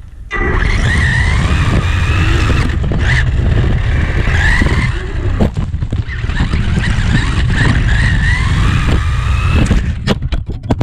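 Losi Mini B RC buggy driving, heard from a camera riding on it: a loud, rough rumble of tyres and chassis over the ground, with the electric motor's whine rising and falling with the throttle.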